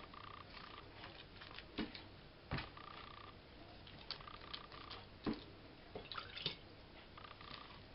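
Wet hand pressing and patting sticky yeast dough into a silicone baking mold, making faint irregular squelches and soft pats, with a few sharper taps.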